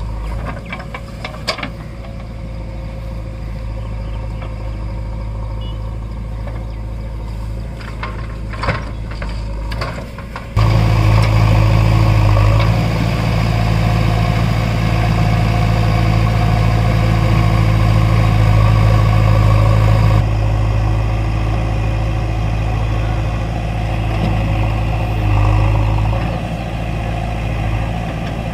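Diesel engine of a JCB backhoe loader running while it tips soil into a tractor trolley, with scattered knocks and clunks for the first ten seconds or so. About ten seconds in the sound cuts abruptly to a louder, steady diesel idle from the HMT tractor and JCB backhoe standing together.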